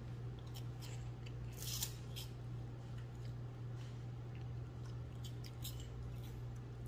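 Several people chewing crunchy bacon-flavoured snack sticks: scattered irregular crunches, with a denser burst of crunching just before two seconds in, over a steady low hum.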